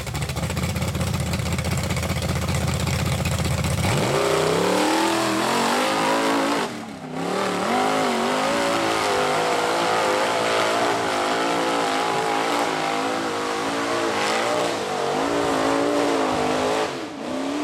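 Off-road vehicle's engine idling low, then revved hard about four seconds in and held at high revs under load on a steep hill climb, the pitch rising and falling as the throttle is worked. It dips briefly about seven seconds in and again near the end.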